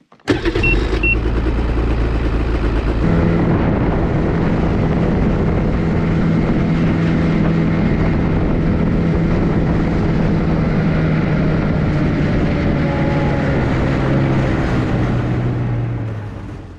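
Snowmobile started with its key: the engine catches about a third of a second in, with two short beeps, and idles briefly. From about three seconds in it runs steadily under way across the ice, then fades out near the end.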